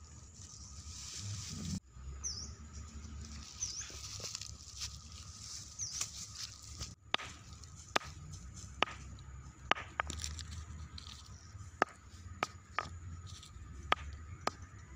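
A hand-held stone knocking and scraping on dry, hard ground while a small hole is dug. From about seven seconds in there are sharp knocks roughly once a second, over a low rustle of dry leaves and soil.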